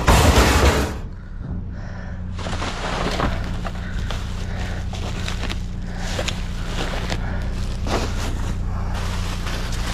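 A loud crash as junk is shifted in a metal dumpster, then rustling and scattered clatter of items being rummaged through, over a steady low hum.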